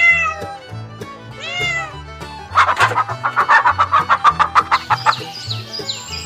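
Animal calls over background music: two short rising-and-falling calls, then a loud, rapidly pulsing call lasting about two and a half seconds.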